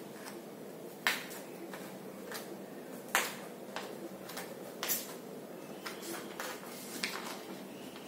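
Several short, sharp clicks and taps over a faint steady hiss, the loudest about one, three and five seconds in.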